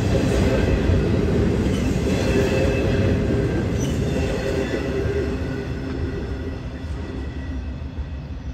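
Double-stack intermodal freight train's well cars rolling past on the rails: a steady rumble of steel wheels on track with faint, thin, high wheel-squeal tones above it. The sound gradually fades over the second half as the end of the train moves away.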